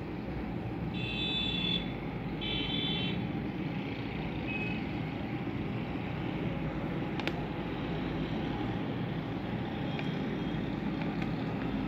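Steady road-traffic noise in the background. Two short high tones come about a second apart near the start, and a single click comes about seven seconds in.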